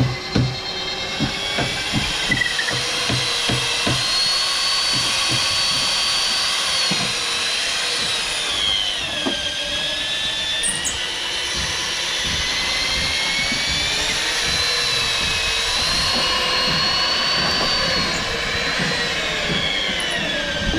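Electric drill boring a long bit into a wooden beam, its motor whine sinking and rising several times as the bit loads up in the wood and frees again. A few sharp knocks right at the start.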